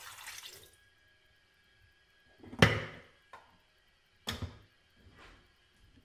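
A last trickle of water into a Philips HD4646 plastic electric kettle, then a few sharp plastic clicks and knocks as its lid is shut, the loudest about two and a half seconds in and a second one about four seconds in.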